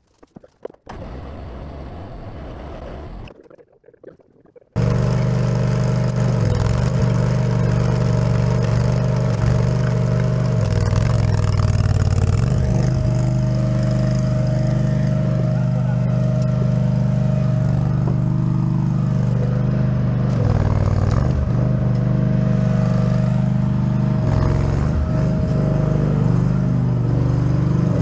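Small trencher's engine running steadily under load as its digging chain cuts a trench through soil. It comes in abruptly about five seconds in, after a few quieter seconds, and holds one pitch with brief slight dips.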